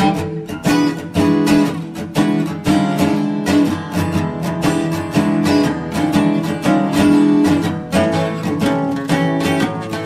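Background music: a steadily plucked and strummed acoustic guitar with a fast, even rhythm.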